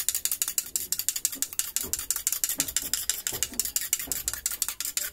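A raw egg being beaten by hand in a small bowl, the utensil clicking against the bowl's side in a rapid, even rhythm of about eight or nine strokes a second.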